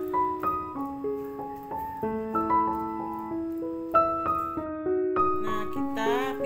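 Background piano music: a melody of held notes, one after another, over lower notes.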